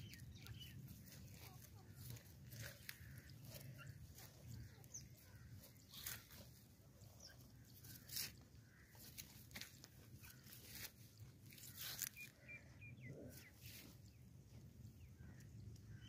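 Faint rustling and crackling of grass and dry stalks, with scattered sharp clicks, and a few faint high chirps near the end.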